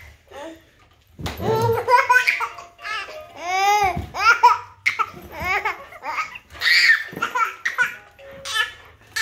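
Seven-month-old baby laughing hard in repeated high-pitched bursts, starting about a second in.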